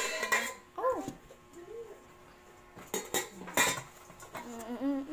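A stainless-steel cooking pot and its glass lid clank and clatter as they are handled, with sharp metallic hits at the start and again twice around three seconds in. About a second in there is a short cry that rises and falls in pitch.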